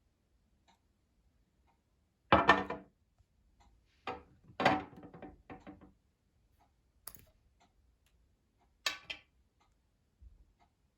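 Handling noises from a perfume unboxing: a series of knocks, scrapes and rustles of the packaging and bottle. The loudest comes about two seconds in, then a cluster around four to six seconds and shorter ones near seven and nine seconds, over a faint regular ticking.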